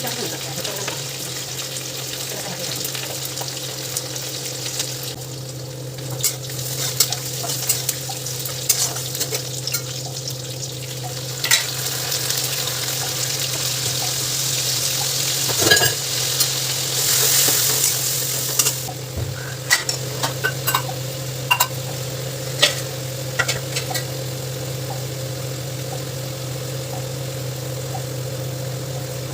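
Food sizzling in a pan while being stirred with a spatula, with scattered clicks and scrapes of the spatula against the pan. The sizzle swells about halfway through, over a steady low hum.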